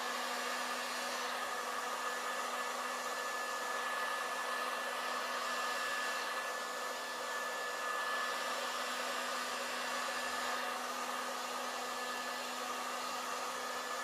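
Hot-air heat gun running steadily: an even fan hiss with a steady motor hum.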